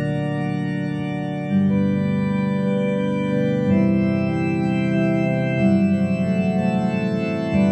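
Organ playing slow, sustained chords, with the harmony changing about every two seconds.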